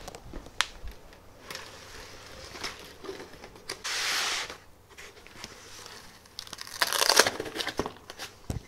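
Rustling and crinkling of foam and plastic packing as parts are pulled out of a shipping box, with scattered light knocks and two louder bursts of crinkling, about four and seven seconds in.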